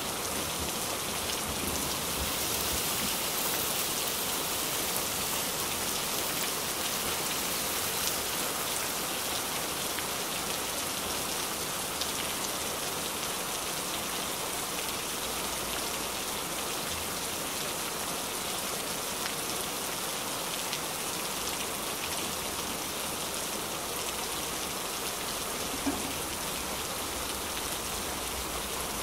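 Blended tomato frying in hot oil in a nonstick pan: a steady sizzle with faint crackles, and a small knock near the end.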